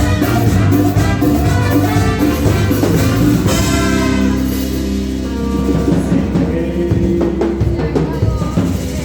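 A live band playing with a drum kit. A few seconds in the band holds long notes, and after that the music thins out to drum strokes and scattered notes.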